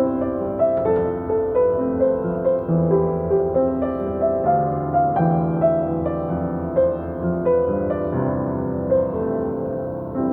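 Solo piano playing a pop ballad melody over chords, a new note struck about every half second to second.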